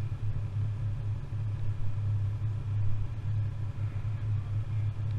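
Snowmobile engines idling, a steady low hum.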